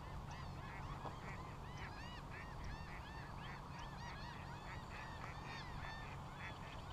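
A flock of birds calling in a steady stream of short, overlapping calls, several a second, over a faint low rumble.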